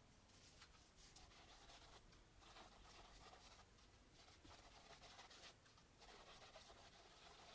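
Faint, irregular scratchy swishes of a large paintbrush spreading acrylic paint across a stretched canvas in circular strokes.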